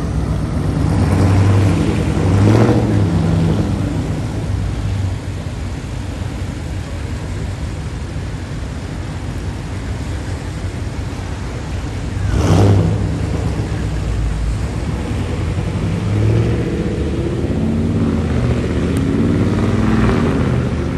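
Dodge Charger's engine revving as the car leaves, with two sharp loud blips of the throttle, about two and a half seconds in and again about twelve seconds in, then rising in pitch as the car accelerates away near the end.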